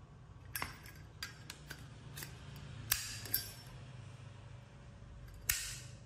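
Solid-brass Zippo lighter being handled: a series of light metal clicks and clinks as the insert goes back into its case, with a louder click about three seconds in, then a sharp metal clack with a brief ring as the lid snaps shut near the end.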